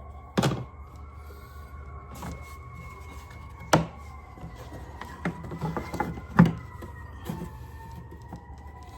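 Inside a moving truck: a steady low rumble with a faint whine that slowly wavers in pitch, and several sharp knocks and rattles, the loudest just past the middle.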